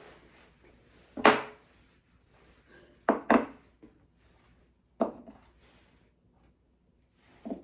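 Separate knocks of kitchen things being handled on a counter: one loud knock about a second in, a quick pair about three seconds in, another near five seconds and a softer one near the end.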